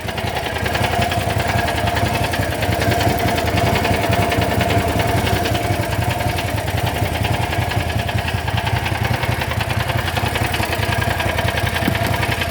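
Small engine running steadily at idle, with an even fast pulsing and a steady whine on top.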